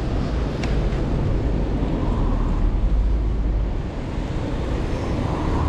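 Wind buffeting the microphone: a steady, rumbling rush of noise.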